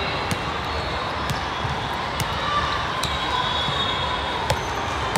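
Reverberant sports-hall din: volleyballs being struck and bouncing on the floor, sharp cracks about once a second at uneven spacing, with occasional sneaker squeaks on the court tiles and a murmur of voices.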